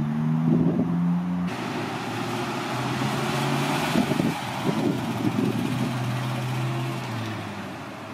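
Classic early-1970s Ford Mustang's engine running with a low, steady note as the car rolls slowly past, over a steady hiss; the note drops in pitch near the end as it eases off.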